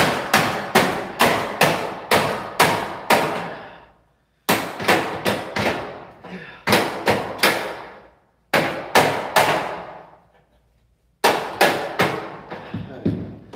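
Hammer blows on a hollow steel door frame, setting a frame clip. The blows come about three a second in four quick runs with short pauses between, each one a sharp metallic strike that rings briefly.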